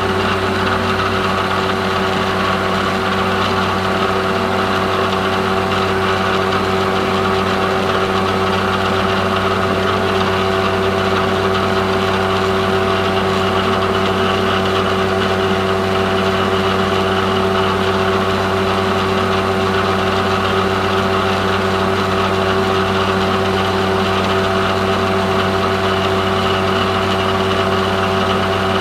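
Vertical milling machine running steadily while an end mill cuts a slot in a metal bar. It makes a constant machine hum made of several steady tones.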